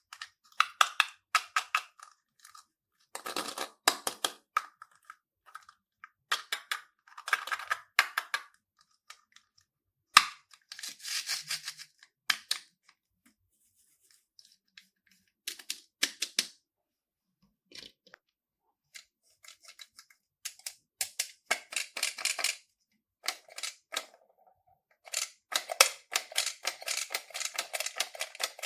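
Slime being worked and squeezed, giving bursts of sticky clicking and crackling pops separated by short silent pauses, with a denser run of crackles near the end.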